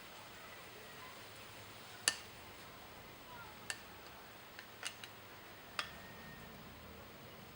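Sharp little clicks and taps of a small metal hand tool against a motorcycle carburettor as a stuck float is worked loose. There are about six clicks at uneven spacing, the loudest about two seconds in.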